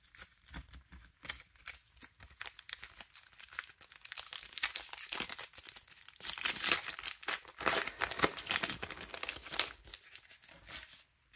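Plastic wrapper of a Panini Adrenalyn XL 2024 Premier League trading card pack crinkling and crackling as it is handled and torn open by hand, loudest from about four seconds in until near the end.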